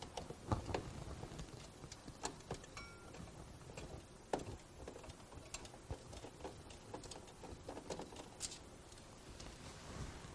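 Faint, irregular small clicks and taps of a screwdriver working loose the bracket screw that holds a slot machine's primary power supply.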